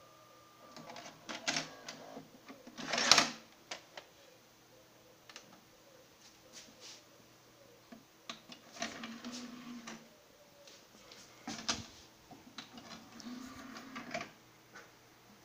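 Toshiba SD-23VE DVD/VHS combo player's disc tray and loading mechanism: button clicks and knocks, with the loudest knock about three seconds in. Two short spells of motor whirring with clatter follow, around nine and thirteen seconds in, as the tray moves and a disc loads.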